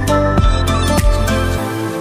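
Background music: steady sustained notes over a regular beat, with the beat and bass dropping out about a second and a half in.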